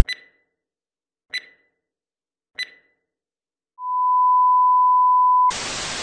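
Electronic sound effect: three short high beeps about a second and a quarter apart, then a steady pure tone held for almost two seconds. The tone is cut off suddenly by a hiss of static near the end.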